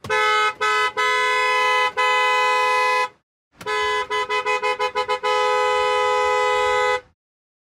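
Car horn, two notes sounding together, pressed from the steering wheel: a few blasts including a long one, a pause, a rapid run of about eight short toots, then a long blast of nearly two seconds.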